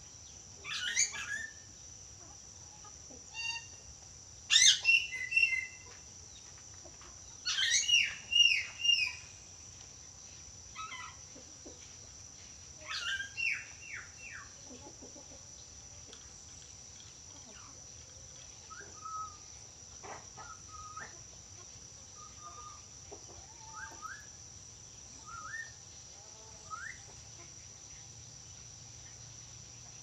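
Bird calls: several bursts of short, clear calls gliding down in pitch through the first half, then fainter scattered chirps. A steady high insect drone runs underneath.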